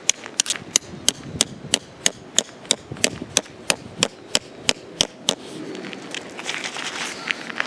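Hammer driving a tent peg into the ground: sharp, evenly spaced strikes, about three a second, that stop about five seconds in.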